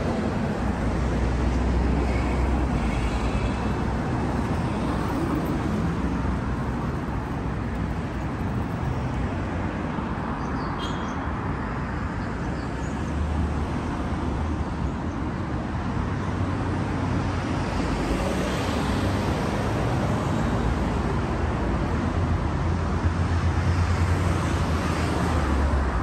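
Road traffic: cars and trucks passing on a busy street, a continuous rumble of engines and tyres that swells as heavier vehicles go by.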